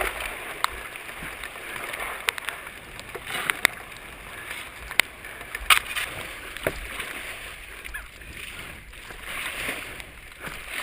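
Flash-flood water running and splashing, a steady rushing hiss with scattered sharp clicks.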